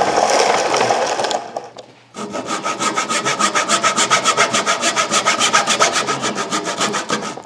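Small hand saw cutting through the leather cover of a cricket ball with back-and-forth strokes. There is a short break about a second and a half in, then quick, even strokes at about five a second.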